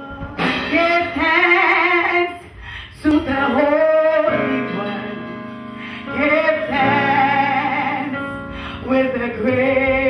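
A woman singing a worship song into a microphone, in long held phrases with vibrato, over steady held chords from an accompanying instrument.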